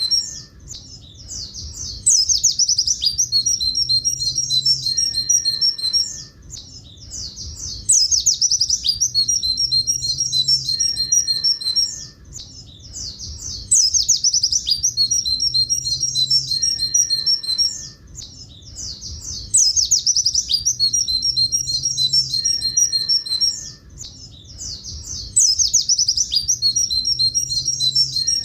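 Pleci buxtoni white-eye singing its long 'tulit tulit' song: a loud burst of rapid, high twittering notes for about four seconds, then a short softer gap, the same phrase coming round again about every six seconds.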